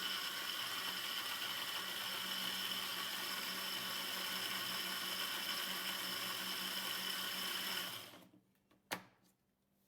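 Electric kitchen blender running steadily as it blends carrots, garlic and water into juice, then switched off about eight seconds in and running down. A single click follows about a second later.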